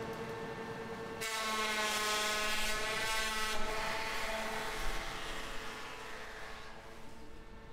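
A steady mechanical hum with a pitched whine, its sound changing abruptly about a second in and again a little past the middle.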